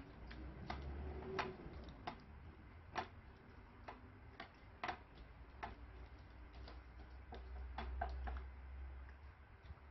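Slime with mixed-in beads being stirred with a plastic spoon in a glass bowl, giving irregular sharp clicks and pops, a few a second, as the spoon works through it against the glass.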